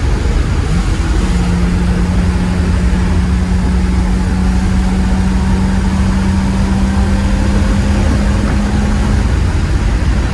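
Ferrari 330 GT 2+2's V12 engine pulling steadily at road speed under a deep road rumble, its note creeping slowly higher, then dropping suddenly at the very end. The car has a fresh tune-up and an adjusted throttle cable, so the throttle now opens fully.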